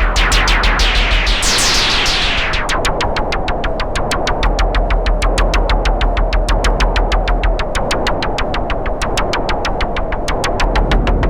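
Electronic noise music: a fast, even pulse of clicks, about seven a second, over a deep steady hum, with a short falling tone repeating roughly every second and a half.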